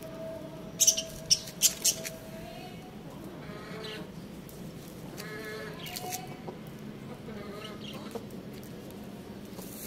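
A rooster making several short, throaty calls. Four sharp slaps come close together about a second in.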